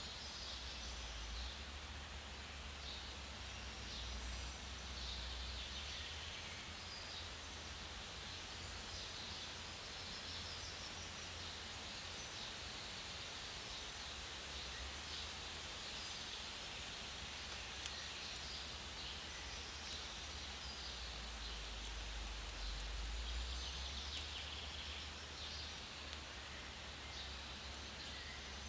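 Outdoor ambience: a steady rustling hiss over a low, gusting rumble of wind, with faint short bird calls scattered throughout.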